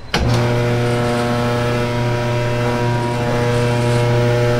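An electric machine motor switches on with a sharp click and then runs with a loud, steady hum.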